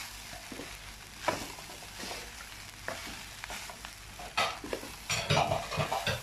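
Beef fried rice sizzling in a wok while a wooden spatula stirs and tosses it, with scrapes and knocks of the spatula against the pan that come thickest in the last two seconds.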